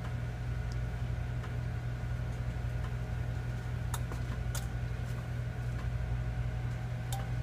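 A steady low hum, like an appliance or electrical hum in a kitchen, with a few faint light clicks about four seconds in and again near the end.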